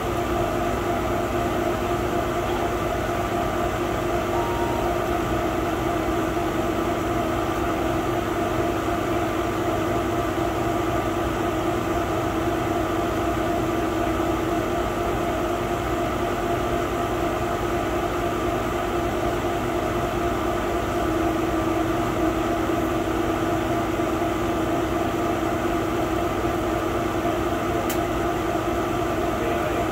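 A 100-watt laser cutter running while it cuts MDF sheet: a steady mechanical hum with several held tones, and one faint tick near the end.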